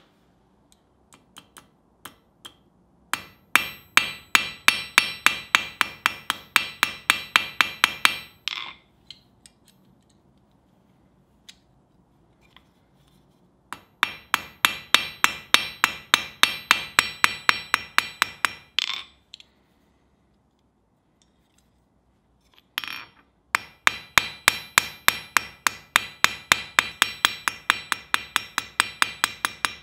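Small hammer tapping lightly and quickly on steel over an anvil, peening over the pivot rivet of a forged steel nutcracker. Three runs of about four ringing taps a second, with short pauses between them.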